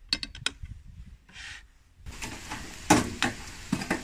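A few light clicks of metal skewers against each other and the platter. After that comes clatter and knocking as charcoal is poked and shifted in a metal grill box, with one sharp knock about three seconds in.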